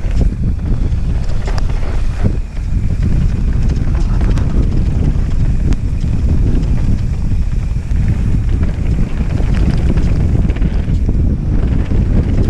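Wind buffeting the rider's camera microphone during a fast mountain-bike descent, over a steady rumble of knobby tyres rolling on loose dirt and rock. Scattered clicks and knocks from the bike rattling over the bumps.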